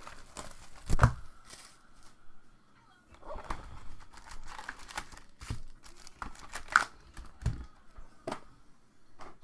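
Plastic wrapping on trading-card packaging being torn and crinkled open, with a sharp knock about a second in and a few softer knocks later.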